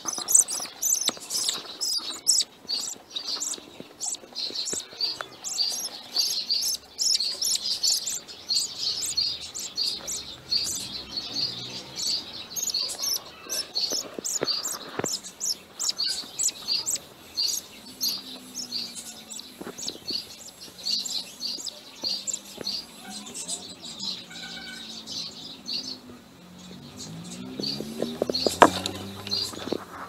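Budgerigars chirping in a nest box: a quick, continuous run of short, high peeps, a few a second, thinning out near the end.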